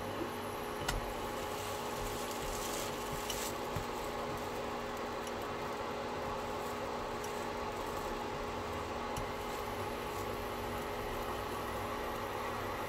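Steady hum and hiss of a pancake cooking in a nonstick frying pan on an induction hob, with a few light clicks from the spatula.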